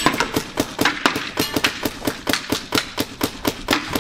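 Paintball marker firing in rapid succession, about six shots a second.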